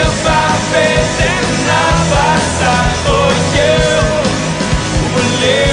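Christian worship song in a rock-band arrangement: a steady drum beat, bass and electric guitars under a melodic lead line.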